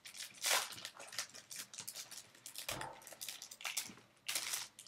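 Foil wrapper of a Match Attax trading-card pack crinkling and tearing as it is ripped open by hand, in a string of irregular rustles with a soft thump near the middle.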